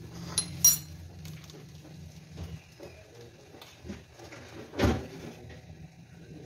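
Clinks and knocks of bread rolls and a utensil being handled on a flat pan on the stove, with a few light clicks near the start and one louder knock about five seconds in.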